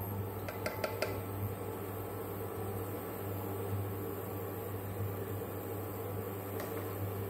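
Induction cooktop humming steadily under an aluminium pressure cooker of melting ghee, its cooling fan running. There are a few quick clicks of a silicone spatula against the pot within the first second.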